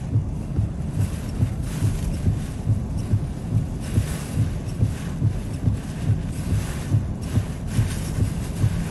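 Hurricane wind and driving rain rushing in gusts, with a regular low thump about twice a second underneath.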